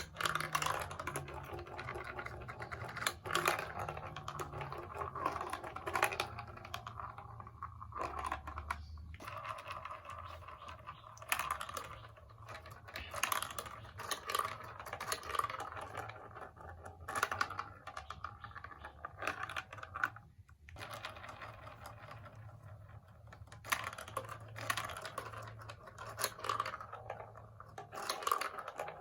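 Rapid, irregular clicking and clattering of plastic marble-run building blocks and marbles, going on throughout with brief lulls.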